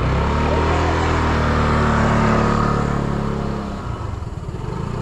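Motor scooter engine pulling away, its steady drone starting abruptly and dying away after about three and a half seconds.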